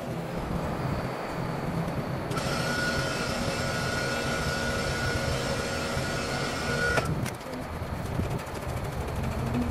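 A power tool driving a bushing press on a truck's leaf-spring hanger, working a spring bushing: a steady mechanical whir, with a whine that joins about two seconds in and cuts off sharply around seven seconds.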